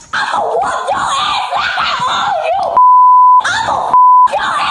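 A girl shouting at the top of her voice, cut twice by a loud, steady censor bleep, about three seconds in for over half a second and again briefly about a second later.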